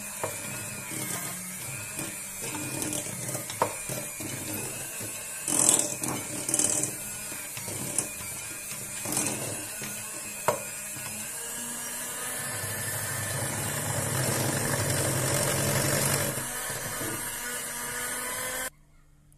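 Electric hand mixer running steadily, its beaters churning a thick cocoa cookie dough in a glass bowl, with a few sharp clicks along the way. It grows louder for a few seconds, then cuts off suddenly near the end as it is switched off.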